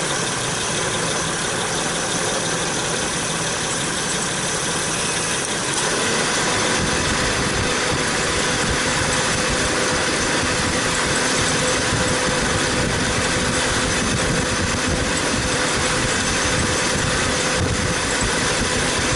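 A 2008 Acura MDX's engine is idling. About six seconds in, the air conditioning comes on: a steady hum is added and the low rushing noise grows louder as the AC compressor clutch engages and the cooling fan runs. This shows the system working once the dead AC clutch relay is replaced with a test relay.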